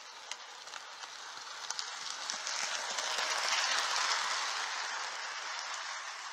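Model train running past close by: wheels on the rails with scattered clicks, growing louder as it approaches, loudest about four seconds in as the locomotive and cars pass, then fading as they roll away.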